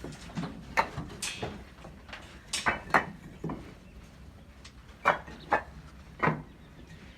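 A series of irregular sharp knocks or clacks, about a dozen over several seconds, with the loudest a little under a second in, around three seconds in, and twice more between five and six and a half seconds in.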